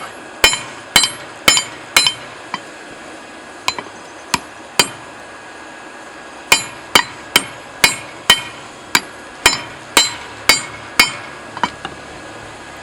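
Hand hammer striking a hot steel drift blank forged from a railroad clip, with a ringing metallic clang at each blow. The blows come at about two a second in three runs: six, then three, then about ten after a short pause, the last few lighter.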